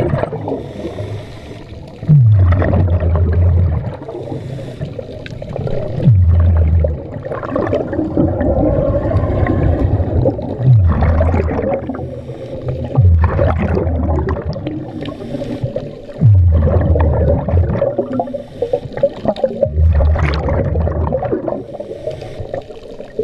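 Scuba diver breathing through a regulator underwater: six loud bursts of exhaled bubbles a few seconds apart, each opening with a short falling tone and then a low steady bubbling, with a continuous watery hiss in between.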